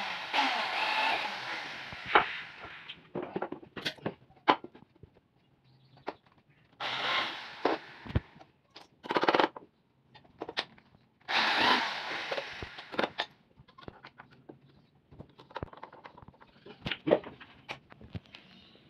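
Hand-held electric drill driving screws into teak boards in several short runs, with sharp knocks and clatter of the wood being handled between the runs.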